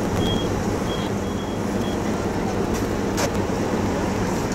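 Large crane's diesel engine running steadily, with a few short, high-pitched warning beeps in the first two seconds and a single sharp click a little past three seconds in.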